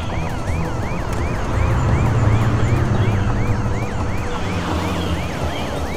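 Cartoon police car siren, a fast rising-and-falling wail at about three cycles a second, over a low rumble.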